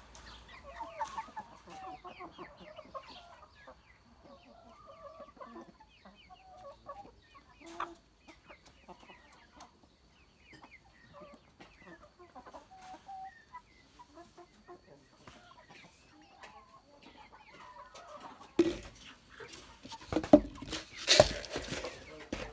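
Hens clucking in a flock, many short calls overlapping. Near the end come several loud knocks and clatters of empty plastic buckets being handled.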